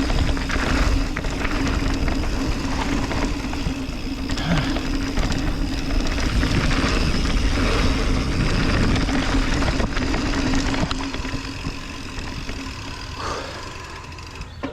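Mountain bike descending a dirt trail: wind rushing over the camera and tyres and frame rattling over bumps, with a steady mechanical hum underneath. It gets quieter about three-quarters of the way through as the pace drops.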